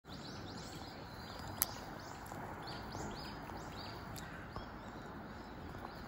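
Small birds calling: short, high, downward-sliding chirps repeated two or three times a second over a steady background hiss, with one sharp click about a second and a half in.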